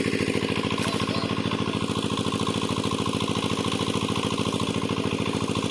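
Small engine running steadily at an even, fast beat, with no change in speed.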